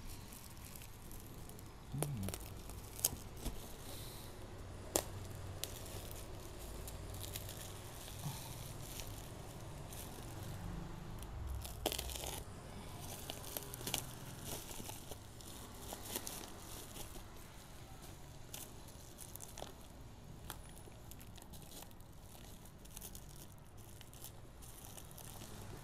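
Plastic bubble wrap being cut and peeled off a knife blade, crinkling and tearing with scattered sharp crackles.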